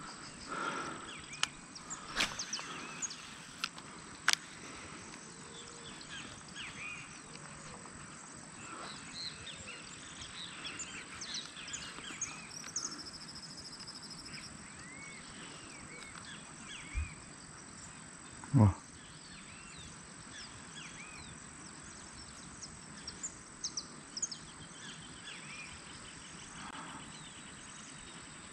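Outdoor quiet with many birds chirping and calling. A few sharp clicks come in the first seconds, and a short low thump about two-thirds of the way through.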